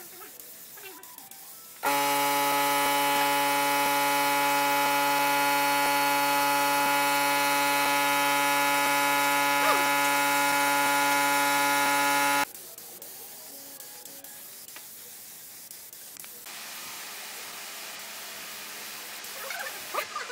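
Air compressor for a gravity-feed spray gun, running with a steady buzzing hum that starts suddenly about two seconds in and cuts off about ten seconds later. A softer steady hiss of the spray gun releasing air and finish lies under it and continues after.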